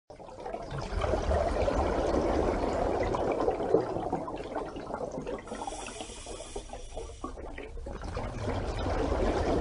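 Rushing, splashing water, quieter in the middle and louder again near the end.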